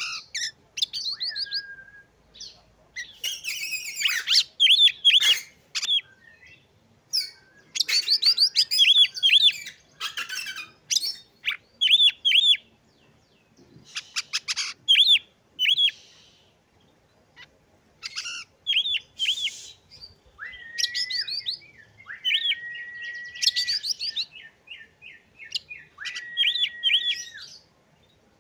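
Oriental magpie-robin singing a varied song: groups of quick, high chirping notes broken by short pauses, with harsh scratchy notes mixed in and, in the last third, long steady whistles.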